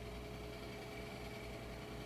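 Steady room tone: a low, even hiss with a faint hum and a few thin, steady whine tones, with no clicks, keystrokes or other distinct events.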